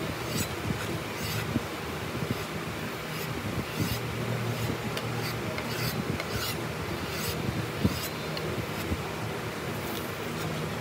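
A kitchen knife blade drawn back and forth over a leather paddle strop, honing and polishing its edge. It makes a dry rubbing swish about one and a half times a second.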